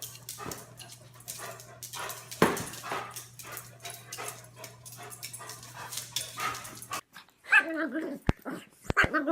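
A dog whining in rising and falling cries near the end, protesting at being brushed with a hairbrush. Before that come scattered clicks and rustles over a steady low hum, with one loud knock about two and a half seconds in.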